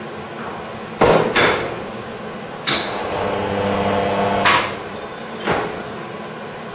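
Hand-lever resistance spot welder joining steel body panels. Two clunks as the tongs close on the seam, then a weld: a steady electrical hum of about two seconds with a sharp crackle at its start and end, and a final clunk as the tongs open.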